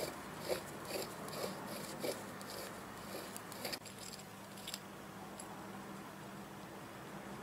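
Scooter engine ball bearing turned by hand, its steel balls giving a run of light, irregular clicks and rattles that stop about five seconds in.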